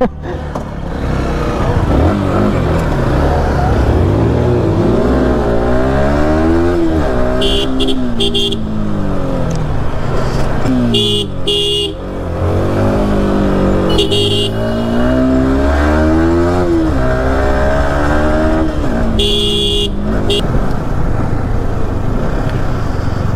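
Motorcycle engine under way, its pitch rising and falling several times as it accelerates and eases off. Vehicle horns honk briefly four times.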